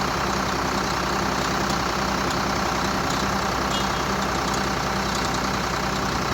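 Heavy diesel engine running steadily at an even idle, with no change in speed.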